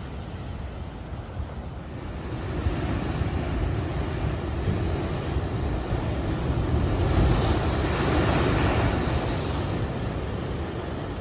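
Ocean waves breaking over the sea wall of a natural seawater pool and washing across it, with wind buffeting the microphone. The crashing surf builds from about two seconds in, is loudest about two-thirds of the way through, and eases toward the end.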